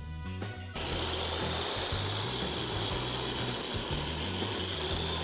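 Stanley miter saw running and cutting through a wooden board: a steady, loud whine and hiss that starts suddenly about a second in.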